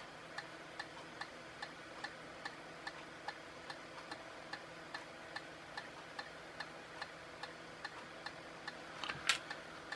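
Regular light ticking, about two and a half ticks a second, over a faint steady hum, with a louder click near the end.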